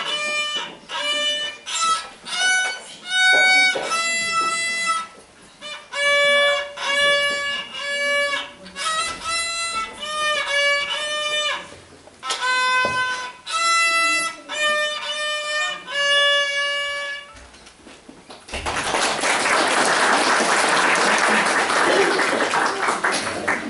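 Solo violin played by a child, a melody of separate bowed notes that ends about 17 seconds in. After a short pause, the audience applauds loudly.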